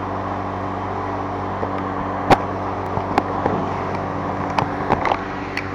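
Suzuki GSX-S150 motorcycle's single-cylinder engine running at a steady, unchanging speed. Several sharp clicks and knocks sound over it in the second half.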